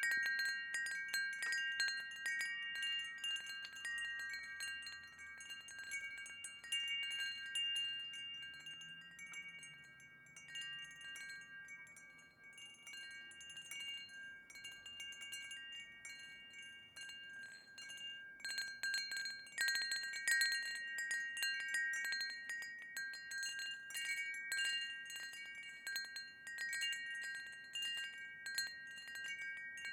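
Wind chimes ringing, struck again and again so that several bell-like tones overlap and hang on. They settle to fewer strikes about a third of the way in, then clatter more busily just past the middle.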